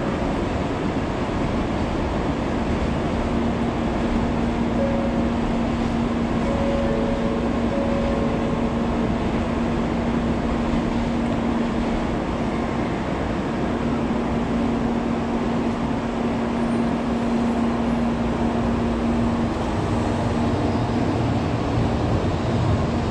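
N700 series Shinkansen pulling slowly out of the station: a steady rushing running noise with a low steady hum, and a deeper rumble joining in near the end as the train gathers way.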